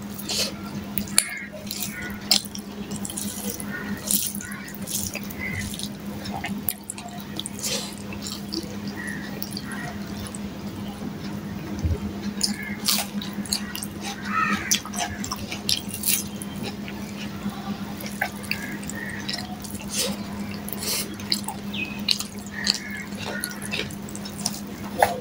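Close-up eating sounds: wet chewing and irregular mouth clicks and smacks as rice and fried hilsa fish are eaten by hand. A steady low hum runs underneath.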